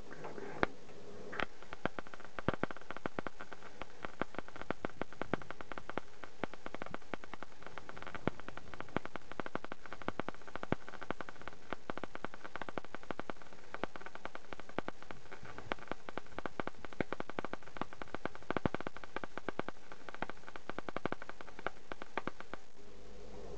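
Sealey 180 MIG welder running an arc on a steel plate: a continuous, irregular frying crackle of the wire arcing and spattering, which stops shortly before the end. It is a test weld made after the welder's bridge rectifier was rebuilt with new diodes.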